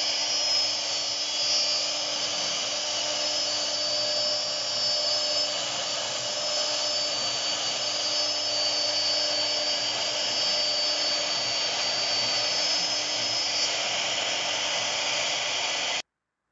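CNC router spindle cutting a car-shaped profile into a fibreboard sheet: a steady high-pitched whine over the noise of the bit in the board. It stops abruptly near the end.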